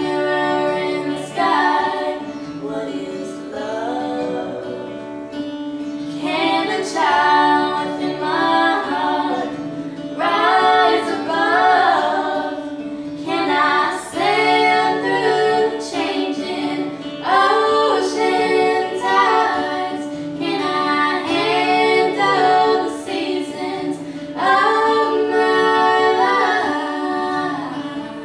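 Background music: a woman singing long phrases over plucked-string accompaniment, with a steady held drone underneath.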